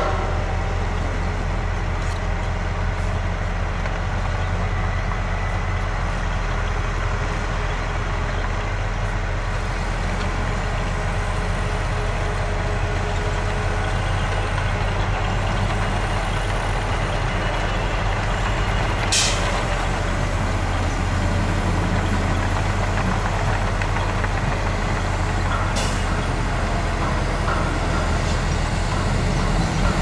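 Dump truck's diesel engine running steadily while its hydraulic hoist raises the loaded bed to tip out the dirt. Two short hisses come about two thirds of the way through and again near the end.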